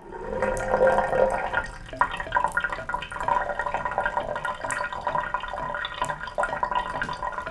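Water sloshing and dripping, an irregular run of small splashes and drips over a faint steady hum.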